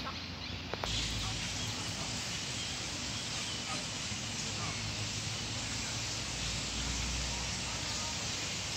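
Outdoor background ambience: a steady noise bed with faint bird chirps and distant voices.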